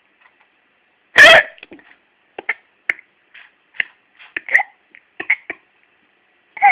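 A small child hiccuping: one loud hiccup about a second in, then a string of smaller, short hiccups every few tenths of a second.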